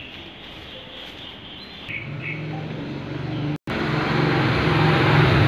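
A steady low engine hum that grows louder, joined by a loud rushing hiss after a sudden break about three and a half seconds in. A few high bird chirps sound in the first two seconds.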